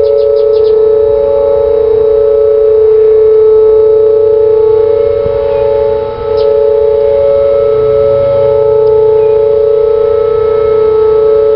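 Several Whelen WPS 2800-series electronic outdoor warning sirens sound the steady 'alert' tone of a monthly test. The sirens sit at slightly different pitches, so their close tones waver against each other.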